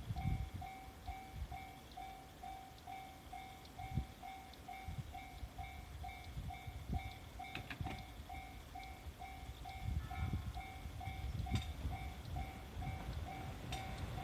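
Japanese level-crossing warning bell ringing, a repeating two-tone ding about three times a second, signalling that a train is approaching. Low rumbling noise sits underneath.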